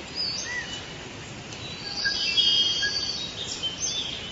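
Lovebirds chirping, a flock of short shrill chirps and whistles that thickens and gets loudest about two seconds in, over a steady hiss.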